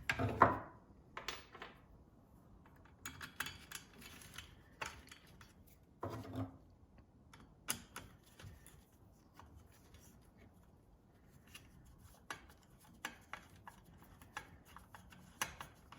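Scattered light clicks and taps of hand tools and small metal parts being handled as a replacement ignition coil is fitted onto a small Stihl engine power head.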